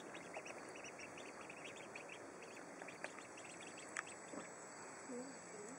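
Week-old Khaki Campbell ducklings peeping softly and continually, with a sharper faint click about four seconds in.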